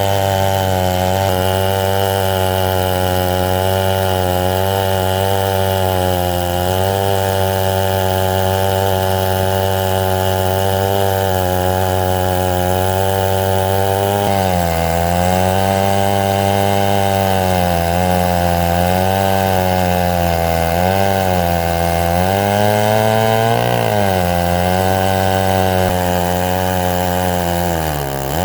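Chinese clone of a Stihl 070 two-stroke chainsaw on an Alaskan mill, running under load as it rips through mesquite. Its pitch holds steady at first, then sags and recovers several times in the second half as the cut loads it. The owner says the saw is running really rich.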